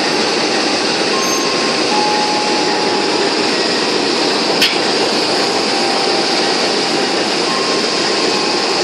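CC201 diesel-electric locomotive standing at idle, its engine and cooling fans giving a loud, steady running noise. A single sharp click comes about halfway through.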